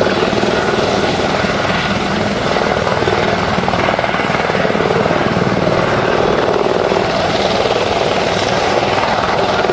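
Eurocopter EC130 helicopter running on the ground with its main rotor turning. Its single turboshaft engine gives a steady, loud sound with a rapid rotor chop, holding even throughout.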